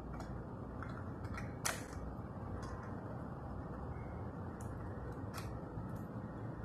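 Scattered light clicks and ticks from the plastic and die-cast parts of a First Gear model front-loader garbage truck being worked by hand, about half a dozen, the sharpest about a second and a half in, over a steady low hiss.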